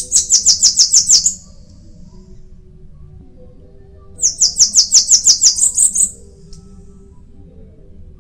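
Bananaquit (sibite) singing: two quick bursts of high, rapid repeated notes, about seven a second. The first comes right at the start and lasts about a second; the second starts about four seconds in, lasts nearly two seconds and ends with a brief rising flourish.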